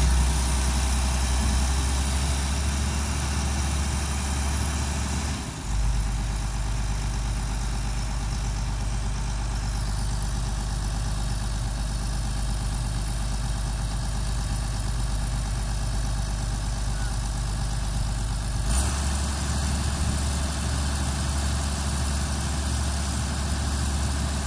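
Caterpillar tracked excavator's diesel engine running steadily. Its note changes about five seconds in and again about two-thirds of the way through.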